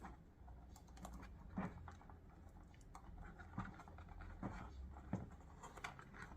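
Faint, scattered small clicks and light rubbing of hands handling wiring and heat-shrink tubing, sliding the tube along a wire.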